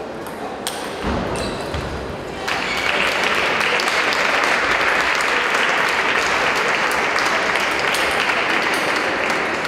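A few sharp table tennis ball strikes, then about two and a half seconds in, steady audience applause breaks out and keeps going, greeting the match-winning point.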